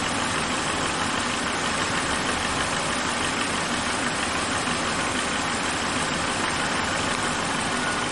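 Suzuki Katana's engine idling steadily.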